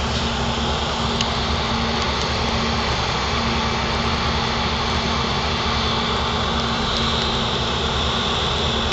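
Steady rushing drone with an even low hum underneath, heard from the deck of a moving river cruise ship: its engines running and air rushing past.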